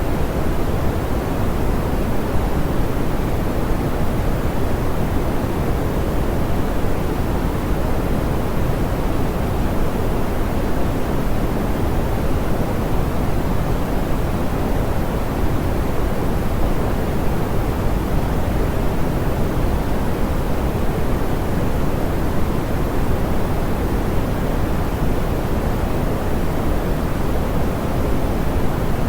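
Steady pink noise: an even, unchanging hiss, fuller in the bass and softer in the highs.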